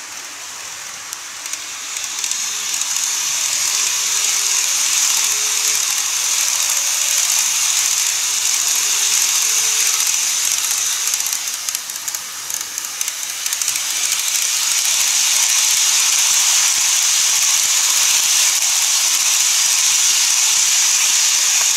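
N-scale model trains running on plastic track: a steady hiss of wheels and motors with fine rapid clicking. It gets louder after about two seconds, dips around twelve seconds in, and rises again as another train passes.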